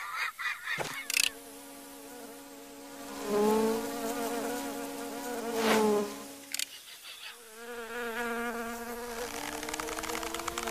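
Cartoon insect wing-buzzing sound effects: a few short clicks, then a steady buzzing hum that wavers in pitch twice, and a buzz that slides up in pitch near the end.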